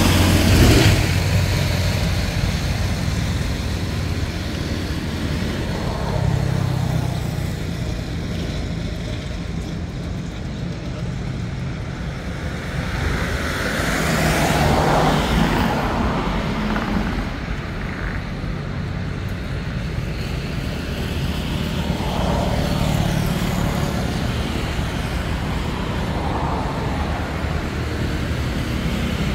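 Road traffic: a steady low rumble of passing vehicles, swelling as one goes by about fifteen seconds in and again later on.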